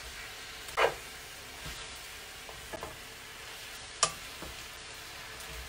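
Fresh spinach sizzling in hot oil in a frying pan as it is tossed with metal tongs. A few short scrapes and clicks of the tongs against the pan come through, the loudest about a second in and a sharp click about four seconds in.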